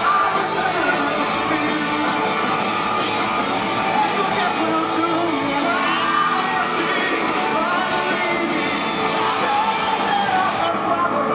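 Live rock band playing with a singer, heard from within the audience in a large hall.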